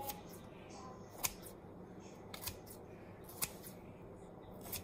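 Kitchen scissors snipping cuts into raw bread dough, a sharp snip roughly once a second.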